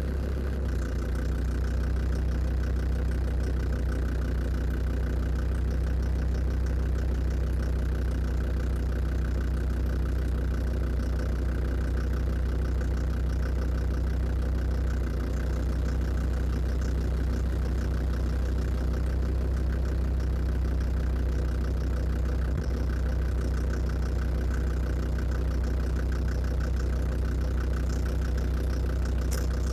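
Land Rover Defender TD5 five-cylinder turbodiesel idling steadily, with a fast, light ticking knock over the running. The owner hears the knock around the exhaust manifold and intake, and puts it down most likely to faulty hydraulic lifters.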